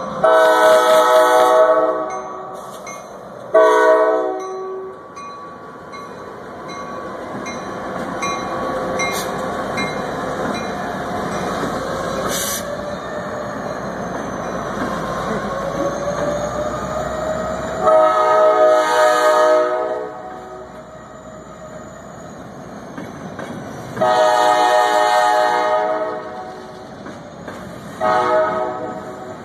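Norfolk Southern diesel freight locomotives sound their chime air horn five times: two blasts at the start, then three more from about eighteen seconds in. Between the blasts is the steady rumble of the train rolling past at street level.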